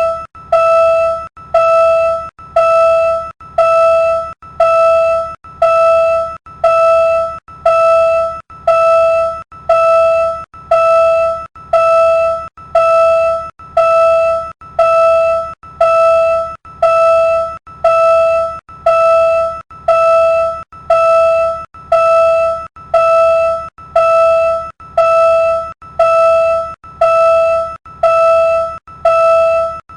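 Railroad level-crossing warning bell ringing steadily, about one ding a second, each a single clear pitched tone that starts sharply and rings briefly before the next.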